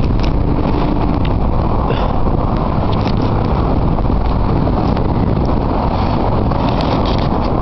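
A vehicle engine running with a steady, even rumble under a constant rushing noise. Nothing starts or stops.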